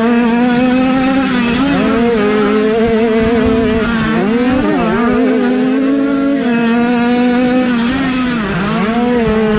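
50cc two-stroke minicross motorcycle engine running at high revs. Its pitch holds steady and dips briefly three times before rising back as the throttle is closed and reopened.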